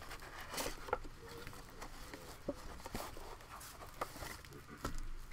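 Cardboard trading-card box and cards handled close to the microphone: scattered taps, scrapes and rustles.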